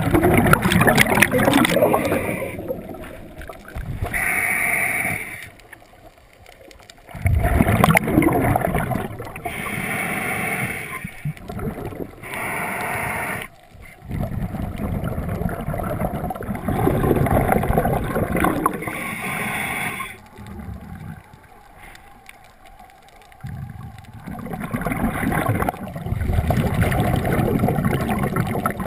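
Scuba regulator breathing heard underwater: gurgling rushes of exhaled bubbles come every few seconds, with quieter gaps between breaths.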